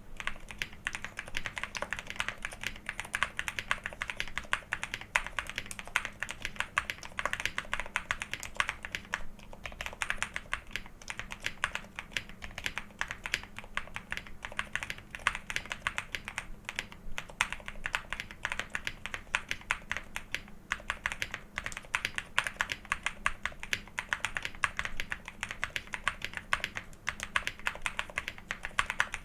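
Continuous fast typing on a Qwertykeys QK65 custom mechanical keyboard with JWK Semi Silent switches, PBT keycaps and a polycarbonate plate: a dense stream of soft, damped keystrokes with a few brief pauses.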